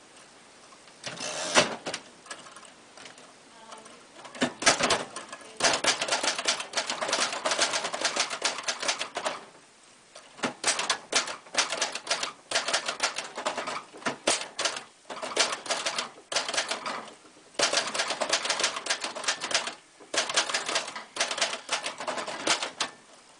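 1965 Royal Empress manual typewriter being typed on: a few single key strikes, then rapid runs of typing lasting several seconds each, broken by short pauses.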